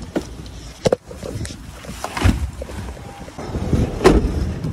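Handling noise from a backpack being pulled out of a car: rustling, with three sharp knocks spread through the few seconds.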